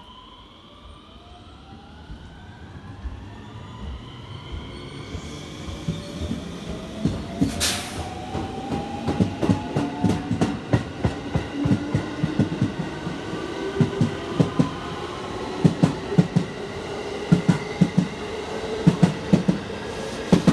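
JR West electric local train pulling out of the station and accelerating past. Its traction motors give a whine in several pitches that rises steadily. The wheels clack over the rail joints, getting louder and quicker as the cars go by. There is one brief sharp hiss about eight seconds in.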